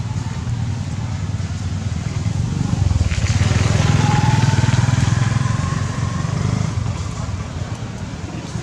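A motor engine running with a low rumble, growing louder about three seconds in and easing off again near the end, with a faint whine at its loudest.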